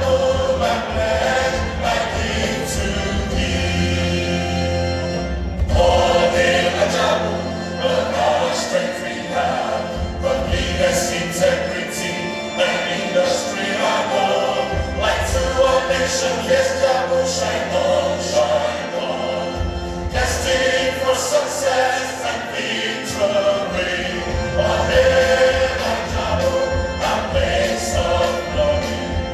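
A choir singing a gospel-style hymn with instrumental accompaniment and a bass line underneath.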